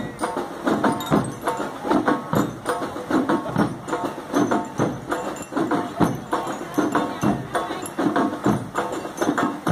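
School marching band playing: bell lyres ringing a tune over snare and bass drums beating a steady rhythm.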